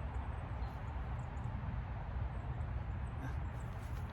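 Steady outdoor background noise: a low rumble with a faint hiss over it, and no distinct events.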